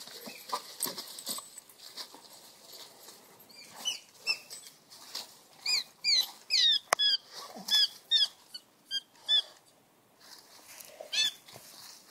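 A squirrel squealing in distress as dogs attack it: a rapid series of short, high-pitched squeaks, most of them between about four and nine and a half seconds in, with one more near the end. Dogs scuffle through dry leaves between the calls.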